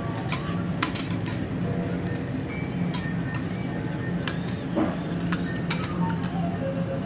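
Steel spatulas clinking and scraping on a teppanyaki griddle, a scatter of sharp metallic clinks at uneven intervals, over background music.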